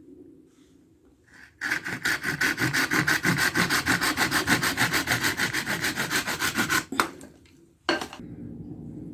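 Traditional Hungarian Maskara folding knife sawing back and forth through a thin wooden branch, about eight quick rasping strokes a second, cutting the carved figure off the branch. The strokes stop about seven seconds in, followed by a sharp knock or two.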